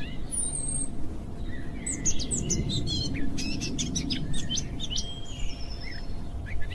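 Birds chirping: many short, high tweets and quick sweeps scattered irregularly over a steady low background hiss.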